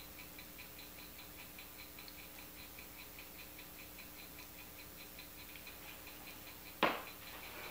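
Faint, regular mechanical ticking, about four ticks a second, with a single sharp click near the end.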